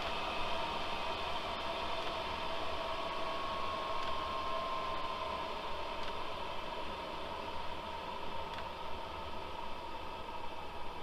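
Diesel air heater's blower fan running on after switch-off, blowing air steadily during its cool-down cycle, with a whine that sinks slowly in pitch over the first few seconds.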